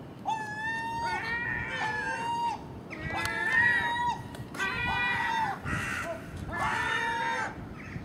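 Common gulls calling at a food source: a run of long, pitched, mewing calls, each about half a second to a second long, several overlapping one another.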